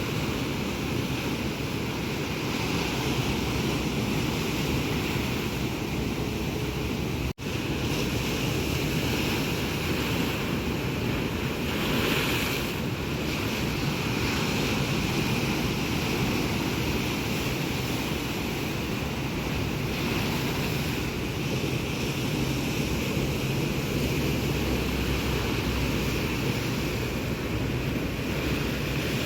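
Mediterranean surf washing steadily onto the shore, with wind buffeting the microphone. The sound drops out for an instant about seven seconds in.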